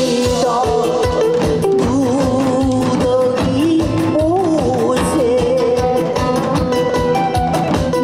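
A Korean song with a sung melody plays over loudspeakers, and an ensemble of janggu hourglass drums and cymbals beats along to it in a steady rhythm.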